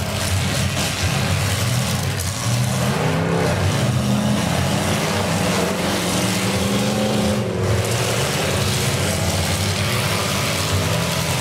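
Several demolition derby cars' engines running and revving together as the cars shove against each other in the mud, their overlapping engine notes rising and falling.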